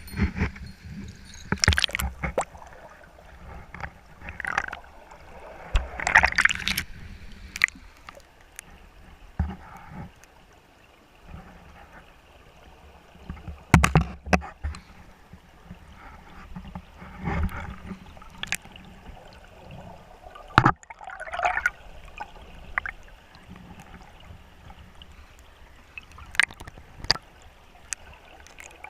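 Water sloshing and gurgling, broken by irregular knocks and clatters and a few short splashes.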